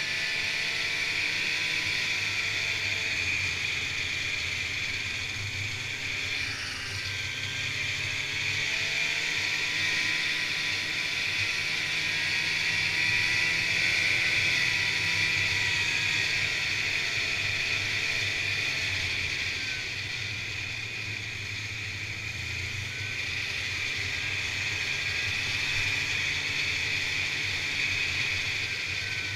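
Snowmobile engine running steadily while riding along a trail, its note rising and falling gently over a constant hiss.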